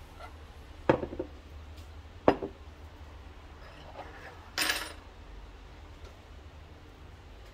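Glass cups and other kitchen items being set down and moved on a countertop: two sharp knocks about one and two seconds in, then a brief scraping clatter near the middle.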